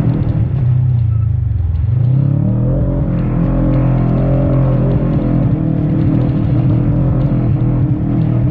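Segway Villain side-by-side's engine running under throttle. The revs drop just after the start, climb again about two seconds in, then hold steady.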